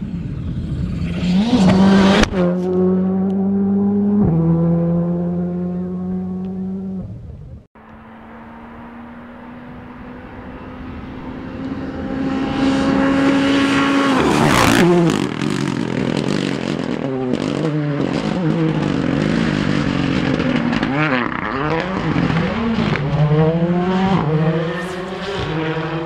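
Rally car engines at full throttle on a closed road stage: an engine climbing through the gears with two quick upshifts, then, after an abrupt cut, another car accelerating hard toward and close past the listener about halfway. After the pass the engine note swings rapidly up and down with short sharp pops as the driver blips the throttle and shifts for the corners.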